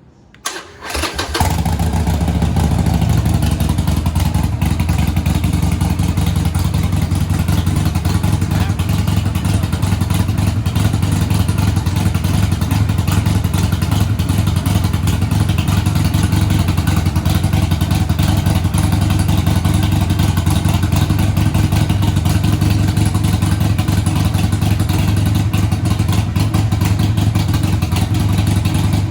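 Harley-Davidson Iron 1200's air-cooled V-twin, fitted with Vance & Hines Twin Slash slip-on mufflers, is started. It catches about a second in, then runs loud and steady through the aftermarket exhaust.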